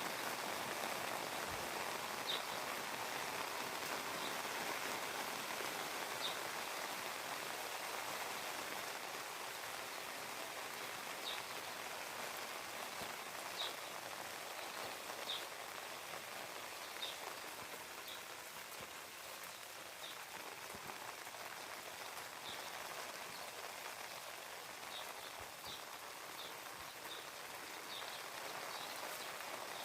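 Steady rain falling and pattering on surfaces. Short, high chirps sound every second or few over it.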